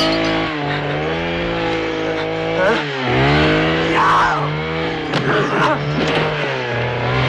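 Chainsaw engine running and revving, its pitch sagging and climbing back several times, with a few short, harsh higher bursts over it about four and five and a half seconds in.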